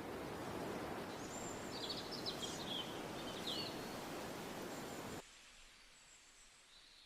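Outdoor ambience: a steady noisy background with several quick high-pitched bird chirps between about one and four seconds in. About five seconds in it cuts suddenly to a much quieter background.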